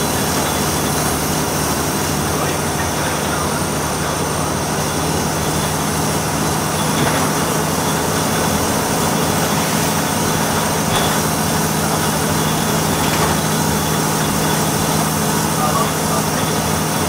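Volvo B6BLE single-deck bus on the move, heard from inside the passenger saloon: a steady diesel engine drone with road noise.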